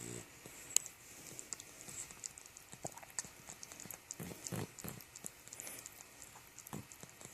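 A sleeping puppy's snore ends at the very start, followed by scattered small clicks and rustles and a few short snuffling breaths around the middle.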